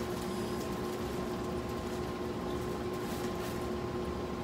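A steady machine hum with a few fixed tones, with faint rustles and light ticks as pepper is sprinkled from a small paper packet.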